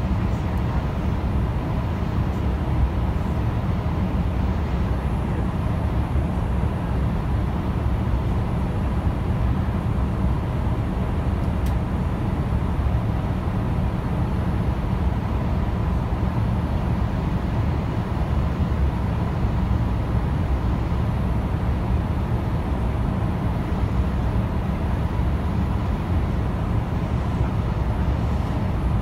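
Steady in-flight cabin noise of a Boeing 787-8 heard from a window seat beside the wing: the low rumble of its General Electric GEnx turbofan and the rush of airflow, with a faint steady tone over it.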